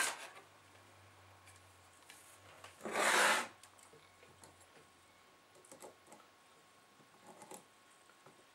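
Small handling sounds on a workbench: a sharp click at the start, a brief rustle about three seconds in, then faint taps and scrapes as a CD laser pickup unit is set into a metal helping-hands clamp.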